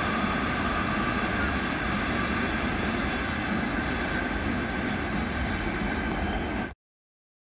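Container freight wagons rolling past on the rails, a steady running noise that cuts off suddenly near the end.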